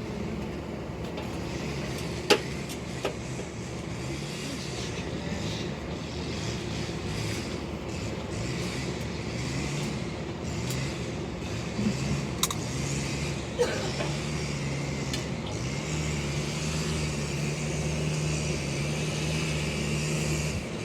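An engine running, its pitch rising and falling over and over, then holding steady for the last few seconds, with a few sharp metallic clicks over it.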